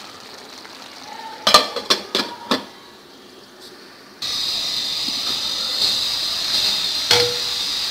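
A glass lid set onto a pan of chicken curry gives a few sharp clinks about a second and a half in. From about four seconds in comes a steady sizzle of the curry frying in its oil, its liquid cooked away.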